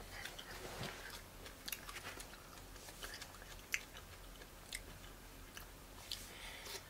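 Faint chewing of a raw habanero pepper: soft, irregular mouth clicks scattered across a quiet background with a low hum.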